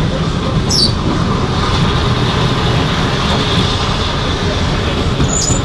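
Railway carriage running along the track at speed, heard from inside the coach as a steady loud rumble of wheels and running gear. A brief high squeak comes about a second in and another near the end.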